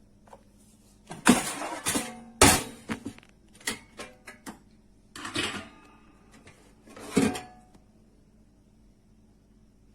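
A series of sharp knocks and clatters of hard kitchen items being handled. The two loudest come about a second and two and a half seconds in, followed by smaller clicks, a short rushing scrape around five seconds, and a last knock around seven seconds.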